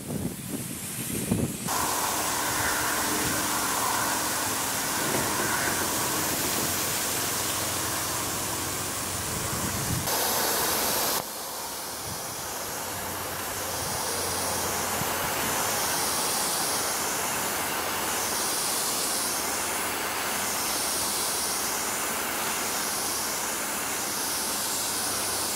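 Garden sprinkler spraying water over freshly planted garden rows: a steady hiss of falling spray. About halfway through, the hiss starts to swell and fade in a regular rhythm, roughly every two seconds, as the spray sweeps back and forth.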